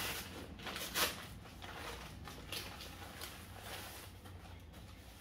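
Brown paper courier packet being torn and rustled open by hand, in short crackling bursts with the sharpest about a second in, then a plastic-wrapped garment crinkling as it is pulled out.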